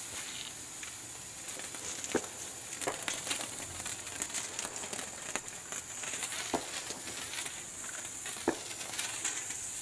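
Hand-held sparkler burning: a steady hiss with crackling, and a few sharp pops.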